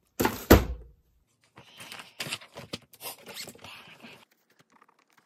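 A loud thump about half a second in, then sheets of paper rustling and being shuffled through for a few seconds.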